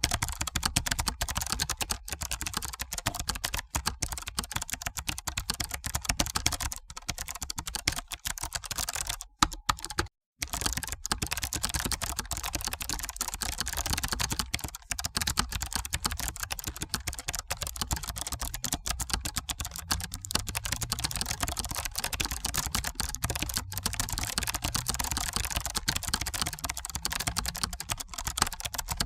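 Steady, rapid typing on a computer keyboard: a dense run of key clicks that breaks off for a split second about ten seconds in, then resumes.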